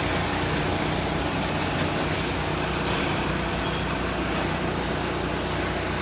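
Steady street noise with a vehicle engine running at idle.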